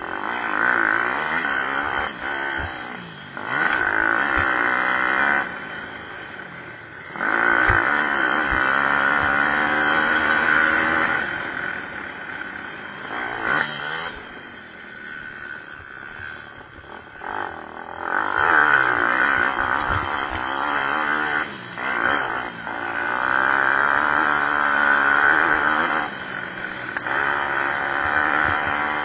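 Pit bike engines revving hard and easing off as the bikes race past, their pitch rising and falling. The noise swells and fades in waves, loudest about eight to eleven seconds in and again from about eighteen to twenty-six seconds in.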